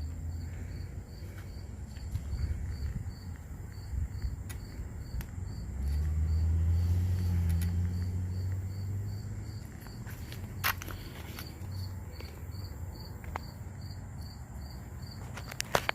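Insect chirping in a steady, even rhythm, a little over two high chirps a second. A low rumble swells about six seconds in and fades away a few seconds later, and there are a couple of sharp clicks.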